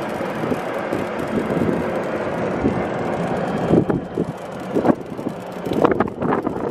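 Golf cart driving along a paved road: steady wind rushing over the microphone over the cart's running and tyre noise, with a few sudden louder bursts in the second half.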